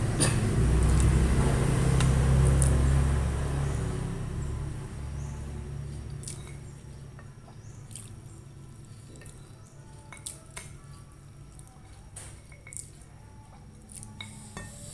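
A low rumble that fades out over the first five seconds. After it come scattered soft clicks and wet squishing sounds of fingers picking rice and fried chicken from a plate.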